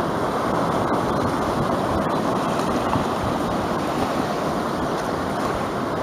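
Small surf breaking and washing up a sandy beach, a steady rushing noise.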